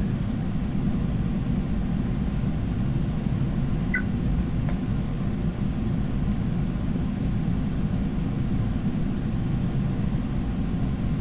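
Steady low rumbling background noise, like a fan or recording hum, with a few faint short clicks: one about four seconds in, another shortly after, and one near the end.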